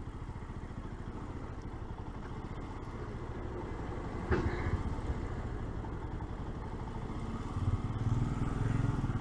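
Royal Enfield Himalayan's single-cylinder engine running steadily at low speed in town traffic, with one sharp click about four seconds in. The engine gets louder near the end.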